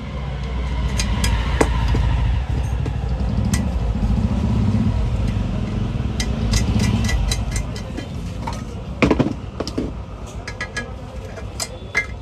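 Sharp metallic clicks and clinks of hand pliers working on a metal cooking pan, with a louder knock about nine seconds in, over a low rumble that fades after about seven seconds.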